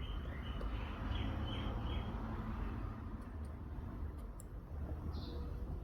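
A row of short, high chirps in the first two seconds, with one more brief high chirp near the end, over a steady low hum.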